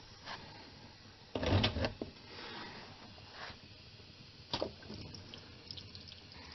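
Handling noise from a loosened automatic transmission pan being eased down by hand: a short rumbling clatter about a second and a half in and a sharp knock about two-thirds of the way through. Old transmission fluid trickles and drips out of the tilted pan in between.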